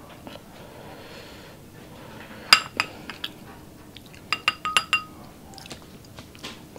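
Wooden spoon clinking against a small drinking glass of barbecue sauce, the glass ringing briefly after each knock: two clinks about two and a half seconds in, then a quick run of about five clinks a couple of seconds later.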